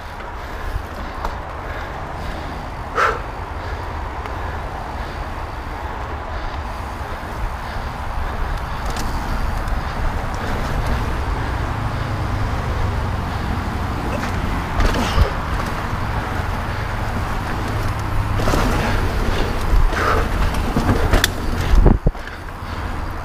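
Mountain biking on a dirt singletrack: wind buffeting the camera microphone over the steady rumble of the 2021 Polygon Siskiu T7 29er's knobby tyres on dirt. A few short knocks and rattles from the bike over bumps, the loudest near the end.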